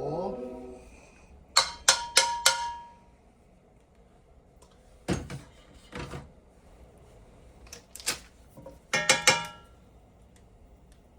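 Kitchen cookware clatter. A quick run of four sharp metal clinks that ring briefly comes about two seconds in, two duller knocks follow around five and six seconds, and another cluster of ringing clinks comes near the nine-second mark.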